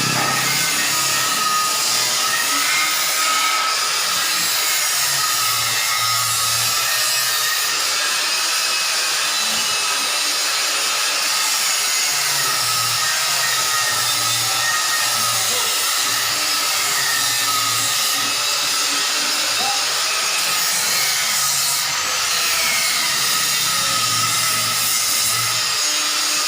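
Machinery running steadily: a loud, continuous whirring hiss with a faint high whine.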